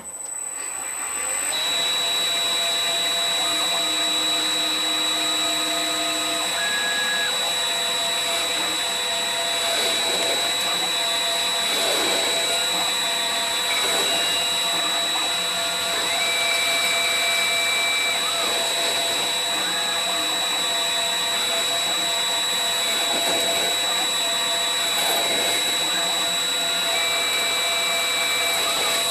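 CNC-converted Myford Super 7 lathe, its spindle driven by a three-quarter horsepower three-phase motor, starts up about a second in and runs steadily while machining, with a constant high whine. Short steady tones at different pitches come and go as the axes move.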